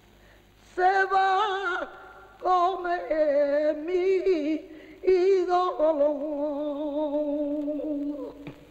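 A lone voice singing a slow song without accompaniment, in three long phrases with a strong wavering vibrato; the last note is held and dies away near the end.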